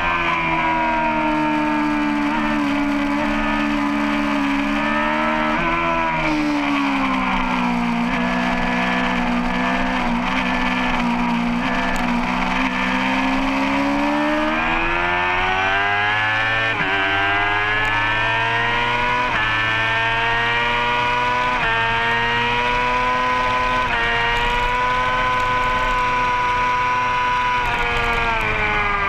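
Racing motorcycle engine at full race pace. The revs drop into a long corner and hold fairly steady through it. Then they climb hard on the exit with four quick upshifts about two seconds apart, and drop again near the end.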